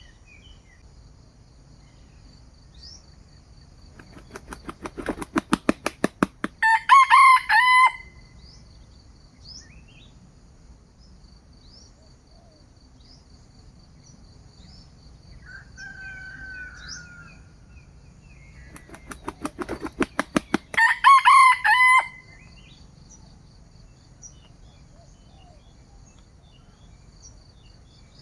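A junglefowl rooster beats its wings in a quickening run of flaps, then gives a short crow. It does this twice, about four seconds in and again near twenty seconds. Insects tick steadily underneath.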